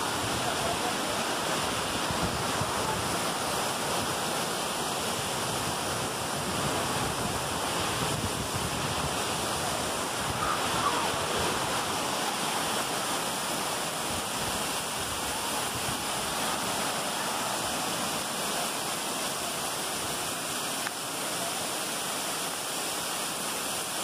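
Waterfall rushing steadily as white water pours into a rocky pool.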